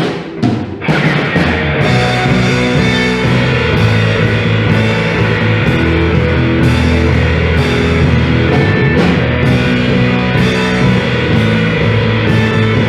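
Band playing rock music: a few sharp drum hits open a loud full-band section of drum kit with regular cymbal crashes, electric guitar and bass.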